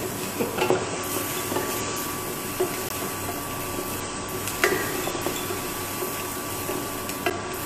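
Chopped onions sizzling steadily in olive oil in a pan as they sweat toward translucent, with a few sharp clinks of a utensil against the pan.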